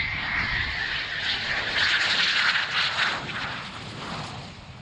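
Eurofighter Typhoon's twin EJ200 turbofans whining on landing approach with the gear down: a high whine that falls slowly in pitch as the jet passes, loudest about two to three seconds in, then fading.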